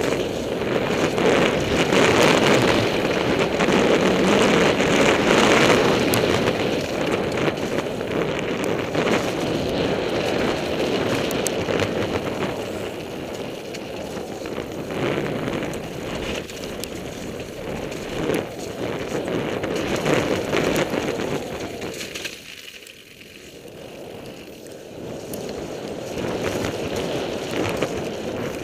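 Mountain bike riding fast down a rough dirt woodland trail, heard from a helmet-mounted camera: steady tyre noise over dirt and leaves with wind buffeting the microphone, and frequent small rattles and knocks as the bike hits bumps. The noise drops for a second or two about three-quarters of the way through, then picks up again.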